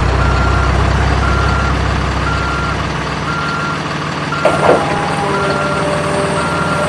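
Reversing-alarm beeps, one high tone about once a second, over a low rumble that fades partway through. About four and a half seconds in there is a brief clatter, after which a few steady lower tones join in.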